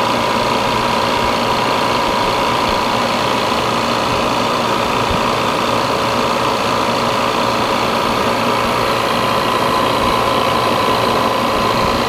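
Refrigerant recovery machine running steadily, its compressor pulling the system pressure down toward zero near the end of a recovery.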